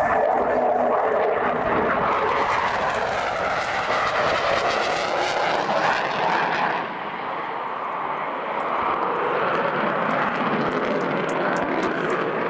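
Loud jet noise from a JASDF F-15 fighter's twin turbofan engines as it maneuvers overhead, with a slowly sweeping, shifting tone as the jet's angle and distance change. The noise drops a little about seven seconds in and swells back up a second or two later.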